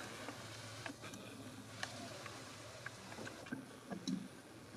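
Quiet outdoor background with faint, scattered light clicks and rustles, like handling of a handheld camera or steps on gravel.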